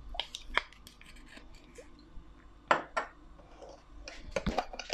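Kitchen handling noises: a few sharp clicks and light knocks of utensils and containers, scattered through, with a small cluster near the end.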